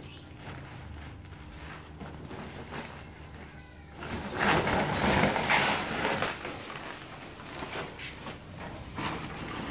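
White woven plastic sack rustling and crinkling as a large water monitor is worked into it and the sack is handled, with a louder, longer stretch of rustling from about four to six seconds in.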